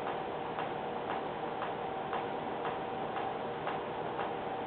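Clock ticking steadily, about two ticks a second, over a faint steady hum.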